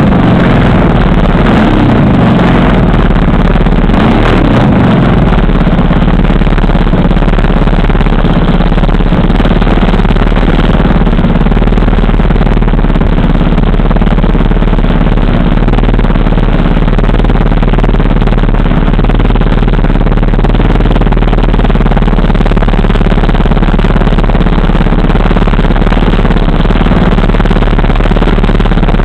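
The 3W two-stroke gasoline engine of a giant-scale RC model airplane runs loud and close at low throttle, propeller turning. Its speed wavers in the first few seconds, then holds steady.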